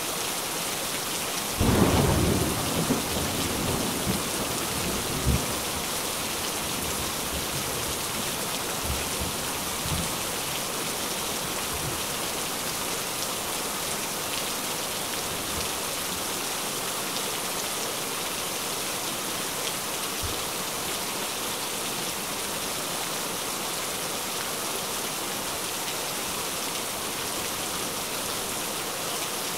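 Steady rain with a thunderclap about two seconds in, its rumble rolling off over several seconds. Fainter rolls of thunder follow later.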